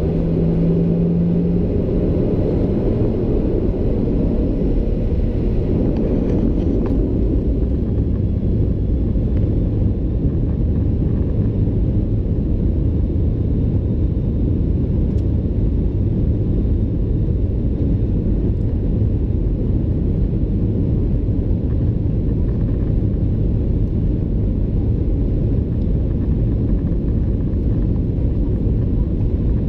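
Boeing 737-800's CFM56 engines and airframe heard from inside the cabin: a steady low rumble while the jet rolls along the runway.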